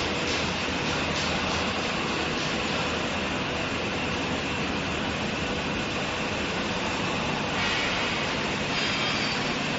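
Steady industrial noise from an induction melting furnace pouring molten metal from its tilted spout into a crane-held ladle. A brighter hiss comes in briefly twice near the end as sparks fly from the pour.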